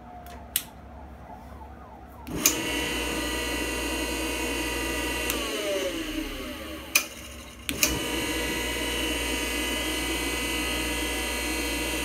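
Bench grinder motor switched on, coming straight up to speed and running with a steady whine. It is switched off about five seconds in and winds down with falling pitch, the switch clicks, and it is switched back on near the end and runs steadily again. It now starts on its own after adjustment of its centrifugal clutch.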